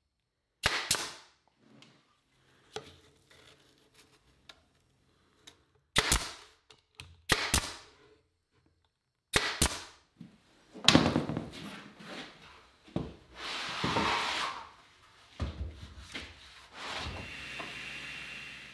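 Porter-Cable pneumatic brad nailer firing four sharp shots into AZEK PVC molding, spread over the first ten seconds, each with a short ringing tail. This is followed by several seconds of louder rushing and scraping workshop noise, with a steady hum near the end.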